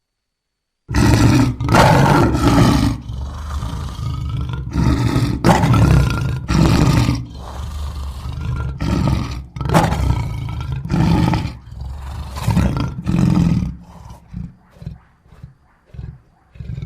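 Made-up dinosaur roar sound effect for Saurophaganax: a string of loud, low roars and growls starting about a second in, trailing off into short, quieter grunts near the end.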